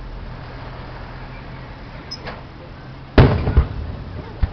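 Firework going off with a single loud bang about three seconds in, followed by a short echoing tail and a smaller bang near the end, over a steady low background.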